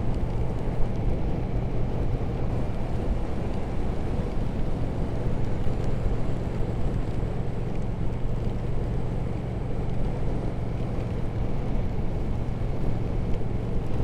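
Triumph Speed Twin 1200's parallel-twin engine running steadily while the motorcycle rides at an even speed, under a constant rush of wind and road noise.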